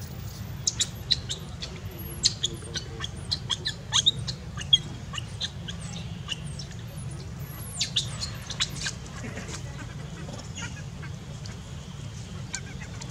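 Birds chirping: clusters of short, sharp high chirps, thick in the first five seconds and again about eight seconds in, over a steady low rumble.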